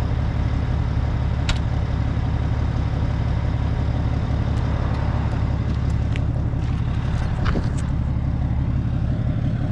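Bobcat skid steer's diesel engine running steadily, with a few sharp clicks and knocks from the machine.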